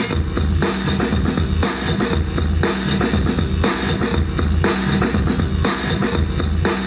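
DJ music with a steady drum-kit beat and heavy bass, played over the hall's loudspeakers for the dancers.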